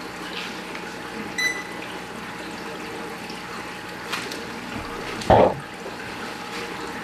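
Steady trickling and splashing of water running through a home aquarium's sump, with a brief louder thump about five seconds in.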